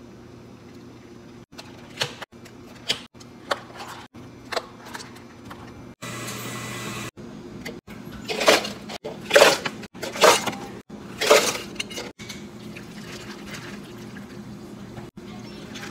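A few light clicks, then four loud rattles as ice is scooped into four plastic cups, followed by water being poured from a pitcher over the ice near the end.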